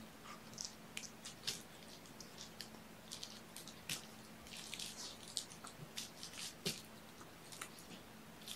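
Scattered faint clicks and soft taps from kittens playing with their toys, over a low steady hum.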